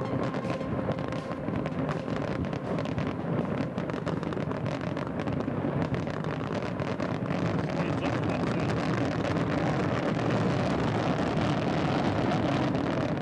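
Dense crowd noise with wind buffeting the microphone, growing slightly louder over the second half.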